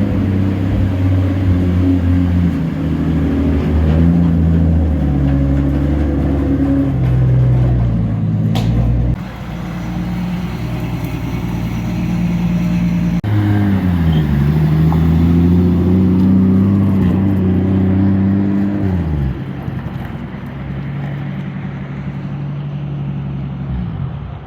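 Car engine running while driving, its pitch climbing and dropping back several times as the revs change with throttle and gear changes.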